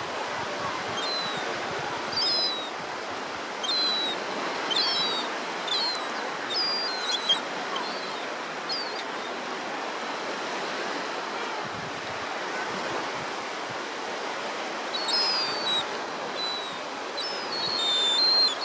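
Steady wash of sea surf with gulls calling: short, high, slightly falling cries, many in the first half, a pause, then a fresh cluster near the end.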